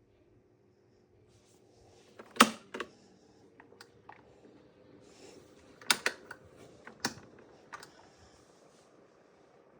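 Luft oscillating desk fan being handled: a series of sharp clicks at irregular times, the loudest a pair about two and a half seconds in and a cluster around six to seven seconds, over a faint steady hum.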